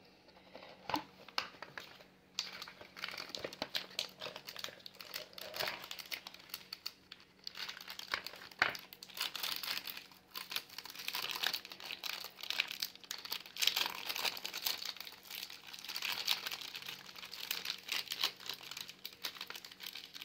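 Crinkling and tearing of chip pouches being opened and unwrapped by hand, a dense irregular crackle that starts about two seconds in.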